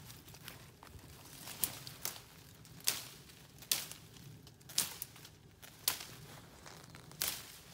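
Slow footsteps crunching through dry leaves on the forest floor, one crackling step about every second.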